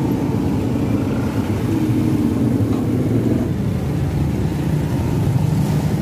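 Street traffic: a motor vehicle engine running close by over a steady traffic rumble, its pitch stepping down about four seconds in.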